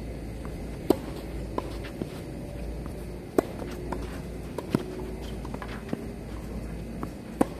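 Tennis rally: sharp pops of rackets striking the ball and the ball bouncing on the hard court, about every one to two seconds, with the loudest hits about a second in, near the middle and near the end.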